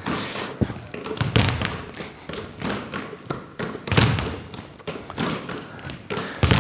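Basketballs bounced on a hard floor as percussion, a group playing a rhythm: heavy thuds about every two and a half seconds with lighter bounces between them.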